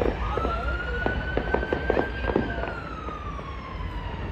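Fireworks going off in a string of bangs and pops. Over them a siren wails, rising slowly and then falling.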